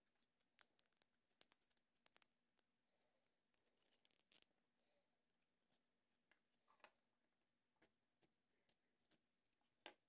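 Faint scraping and clicking of a small hand deburring blade trimming excess plastic off a 3D-printed part. There is a quick run of scratchy strokes in the first two seconds or so, then scattered single ticks.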